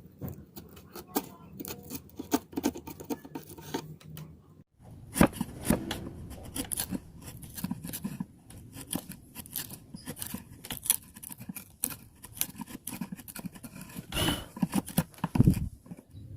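Hand woodworking tools on wood: a run of quick strokes, scrapes and clicks that breaks off briefly about five seconds in, then carries on denser, with a few louder strokes near the end.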